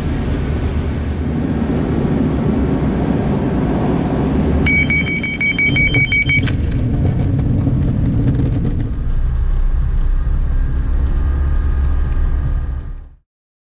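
Cockpit noise of a Robin DR401's CD-155 diesel engine and airflow in the landing flare, with a rapid beeping warning tone for about two seconds around touchdown. Then come knocks and rumble as the aircraft rolls out over a grass runway, with the engine settling to a lower, steadier tone. The sound cuts off suddenly near the end.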